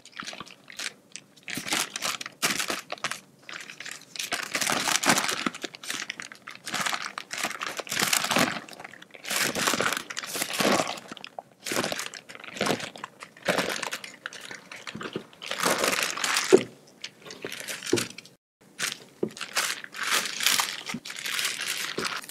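Baking paper crinkling and rustling in irregular bursts as it is lifted and pressed by hand around a rolled sponge cake.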